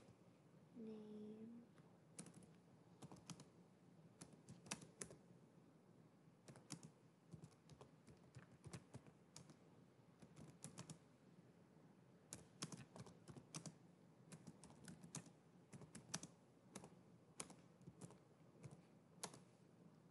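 Faint computer keyboard typing: irregular runs of keystrokes with short pauses between words. A brief low hum sounds about a second in.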